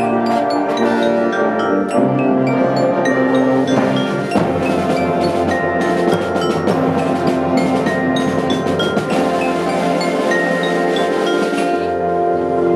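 Brass band playing: tubas, euphoniums and cornets sounding full, held chords, with mallet percussion striking quick notes over them.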